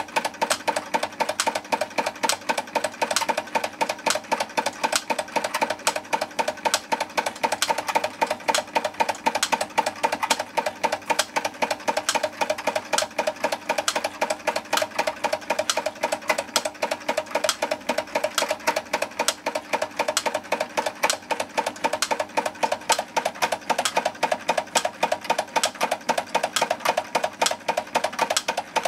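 Wilesco D20 model steam engine running steadily and driving a belt-driven EKT model workshop machine: a rapid, even mechanical clatter.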